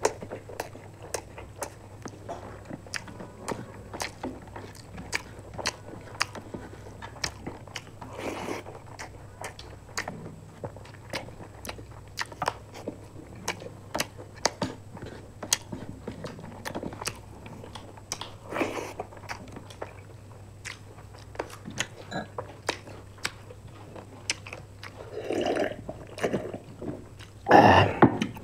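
Close-miked mouth sounds of two people eating rice, egg curry and fried chicken with their hands: chewing and biting, with many short sharp clicks throughout and a louder burst about a second before the end.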